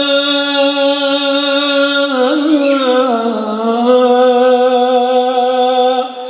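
A solo male voice sings an unaccompanied Arabic devotional hymn (ibtihal), drawing out one long melismatic note. About two seconds in the note breaks into an ornamented, wavering turn, then settles on a slightly lower held note that fades near the end.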